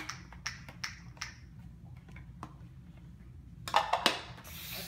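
Light clicks and taps of small plastic caps and containers being handled on a stone countertop. Near the end comes a louder handling noise as a plastic gallon water jug is lifted.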